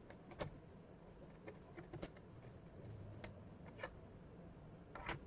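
Thin wooden jigsaw puzzle pieces clicking and tapping on a tabletop as they are picked up and set down, in scattered faint clicks at irregular intervals.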